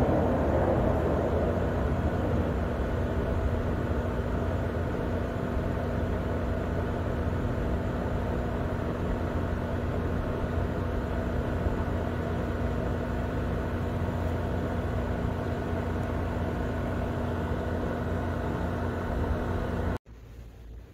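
Jet engine rumble of a Southwest Airlines Boeing 737 airliner passing over, loudest at the start and easing over the first few seconds to a steady distant roar. It cuts off abruptly near the end.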